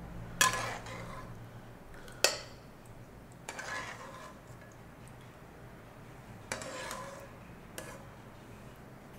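Stainless steel slotted skimmer clinking against a metal bowl and a nonstick wok while lifting confit tomatoes and garlic out of oil: two sharp clinks in the first few seconds, then softer scrapes and a light tap.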